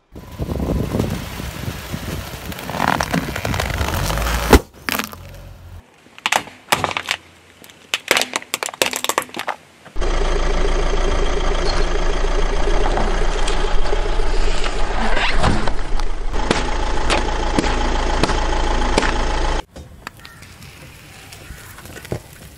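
A car tyre rolling slowly over objects on pavement and crushing them, with crackling, scraping and sharp cracks, one loud crack about four and a half seconds in. Through a long middle stretch the car's engine runs steadily under scattered pops and crunches.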